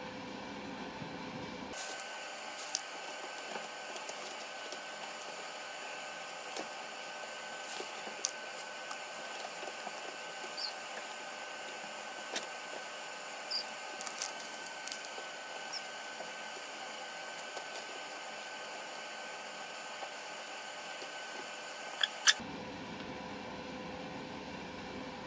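Room sound of a kitten in a fabric tube cat tower, played at triple speed: a steady hiss with scattered small clicks and scratches and a few short high-pitched chirps, the kitten's mews sped up. Two sharp clicks come just before normal speed returns near the end.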